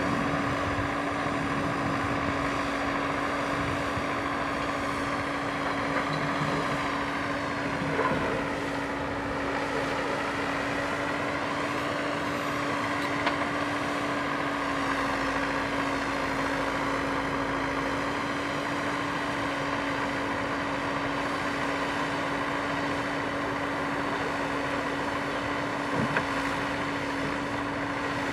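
JCB 3DX backhoe loader's diesel engine running steadily as the backhoe digs, with a constant hum and a few faint knocks.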